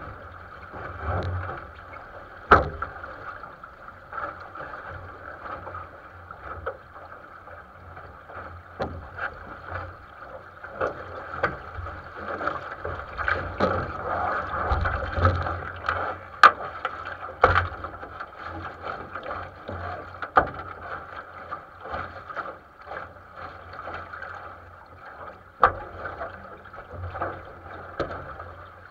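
Water rushing and splashing along the hull of a 470 sailing dinghy under way, with several sharp knocks from the hull and its fittings.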